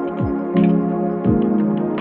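Background music: held, sustained chords with a deep, downward-sweeping drum thump about once a second.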